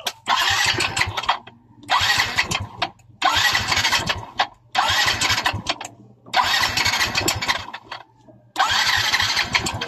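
Yamaha Mio i 125 scooter engine revved in six short bursts of about a second each, dropping back between them. It carries a loud mechanical noise that the mechanic says could be piston slap or a worn connecting rod.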